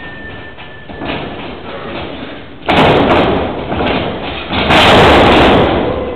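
Wrestlers' bodies slamming onto the canvas of a wrestling ring: two loud impacts, the first a little under three seconds in and a bigger one near five seconds that rings on for about a second.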